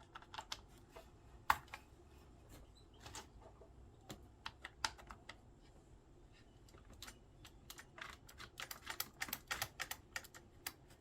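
Keys of a Triumph-Adler 8212PD printing calculator being pressed: scattered single clicks at first, then a quicker, irregular run of key clicks, about three a second, in the last few seconds.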